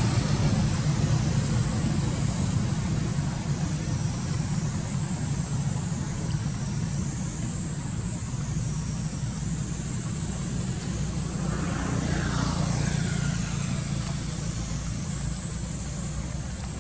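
Outdoor background: a steady low engine-like rumble with a thin steady high buzz above it, and a few faint gliding tones about twelve seconds in.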